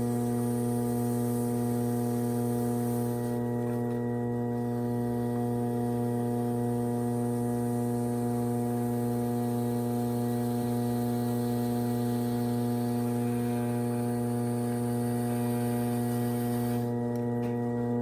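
Electric potter's wheel motor humming steadily while a bowl is trimmed, with a faint hiss above it that drops out briefly twice.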